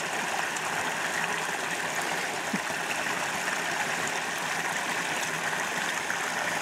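Small mountain creek spilling over rocks in a short cascade: a steady rush of running water.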